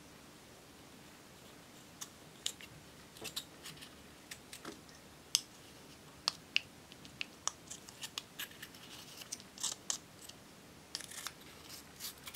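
A small metal spatula scraping and chipping pressed eyeshadow out of its compact pan: irregular crisp scratches and clicks, starting about two seconds in and coming thicker toward the end.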